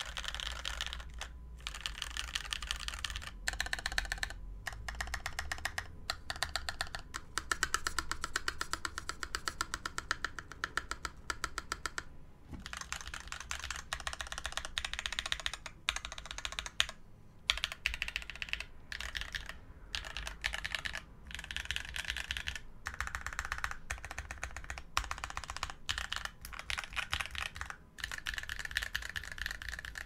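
Typing on an AEboards Kangaroo mechanical keyboard with lubed Blaecks switches, a thick aluminium plate in top mount and GMK keycaps: steady runs of key clacks broken by a few short pauses.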